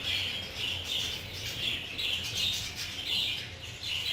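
Budgerigars chirping and chattering steadily, a run of short high calls following one another a couple of times a second.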